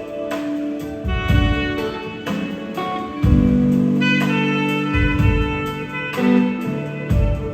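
Instrumental music: sustained chords that change every second or two over low, regular drum-like beats.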